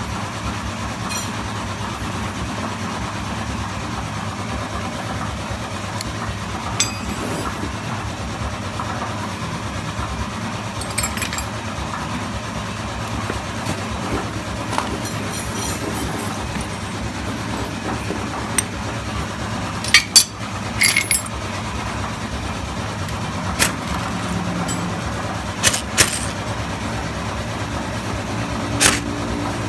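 Scattered short metallic clicks and clinks of hand tools and engine parts being handled on a motorcycle engine, the sharpest pair about two-thirds of the way in, over a steady mechanical hum.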